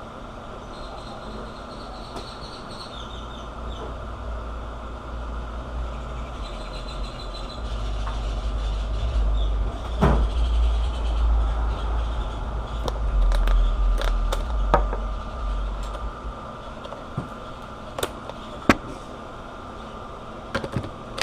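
A low rumble that swells over several seconds and fades away, with a few scattered clicks and knocks.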